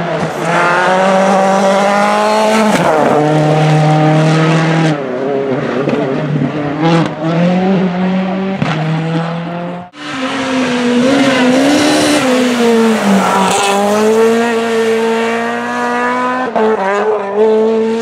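Rally car engines held at high revs through a bend, the pitch dipping and climbing again with throttle lifts and gear changes. A sudden cut about ten seconds in brings in a second car doing the same.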